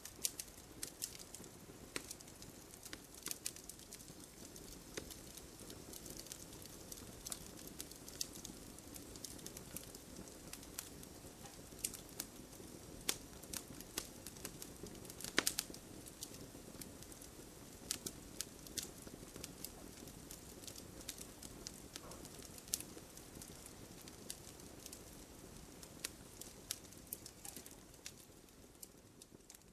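Wood campfire crackling: irregular sharp pops and snaps over a steady low hiss of the burning fire, with one louder pop about halfway through.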